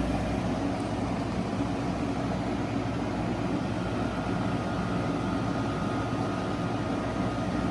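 Waykar dehumidifier running just after power-on: a steady whir of moving air over a low hum, with a faint thin tone joining about halfway through.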